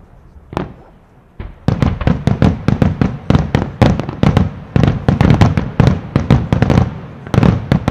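Aerial fireworks bursting: two single bangs, then a rapid volley of sharp reports at about five a second.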